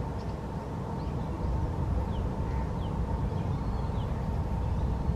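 Outdoor wetland ambience: a steady low rumble, with a few faint, short, high chirps from small birds about once a second.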